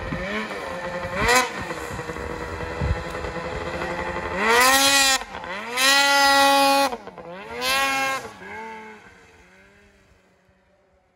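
Ski-Doo 600RS two-stroke snowmobile engine running, then revved hard three times as the sled wheelies past, each rev rising and falling in pitch. It fades as the sled moves off.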